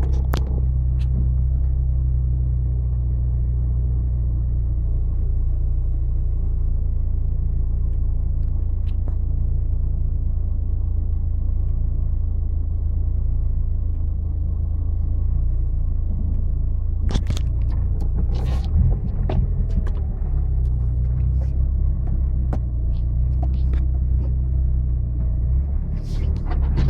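Off-road 4x4 vehicle's engine running with a steady low rumble, with a few knocks and rattles about two-thirds of the way through and again near the end.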